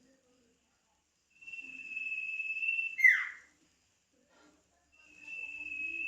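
Male sirtu bird calling: a long, even whistle held on one pitch, then a short sharp note that drops steeply in pitch about three seconds in. A second long whistle begins near the end.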